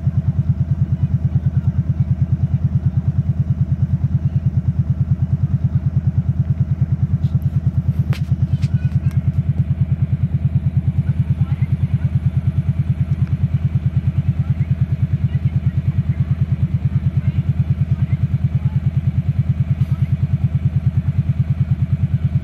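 Tractor engine idling steadily with a low, even throb.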